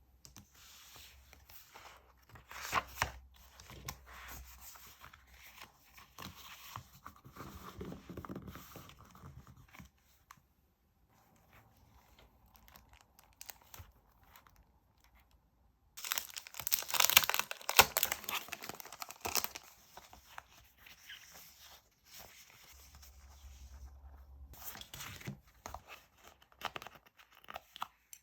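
Close-up rustling, crinkling and tearing of paper and plastic stationery being handled by hand. A louder, dense burst of crinkling and tearing comes about halfway through, after a quieter stretch.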